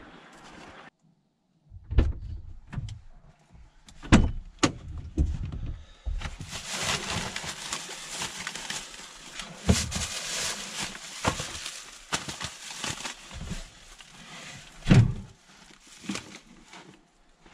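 Several sharp knocks and thumps, then a long stretch of rough scraping and crunching noise full of small clicks, and one heavy thump near the end.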